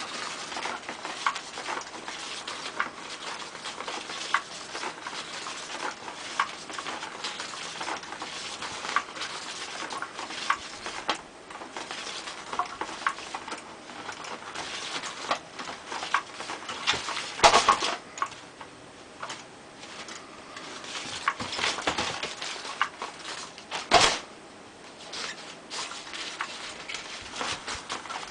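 A kitten playing with a cat toy: scattered light clicks, taps and patters as it bats and chases it, with two louder knocks, one about two-thirds of the way in and one near the end.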